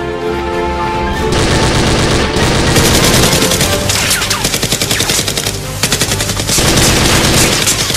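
Rapid automatic gunfire in bursts, starting about a second in, over background music.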